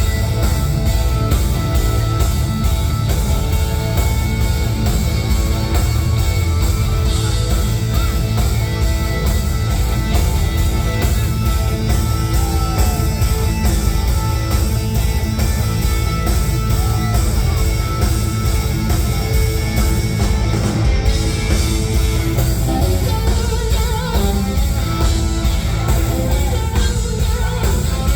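Rock music with guitar, loud and continuous, with a heavy bass.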